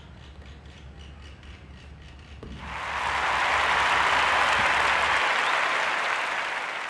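Audience applauding, starting about two and a half seconds in and tapering off near the end; before it, only the quiet hum of the hall.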